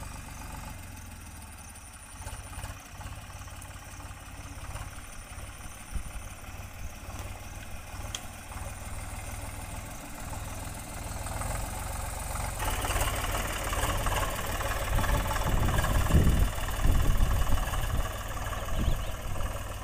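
Eicher 485 tractor's three-cylinder diesel engine running as the tractor drives closer pulling a disc harrow, growing steadily louder over the second half.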